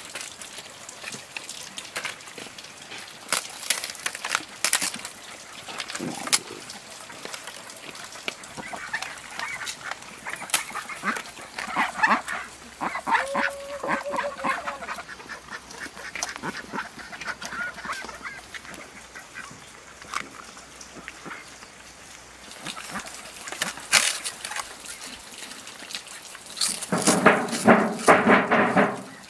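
Ducks quacking: softer calls around the middle and a loud run of quacks near the end, over scattered clicks and knocks.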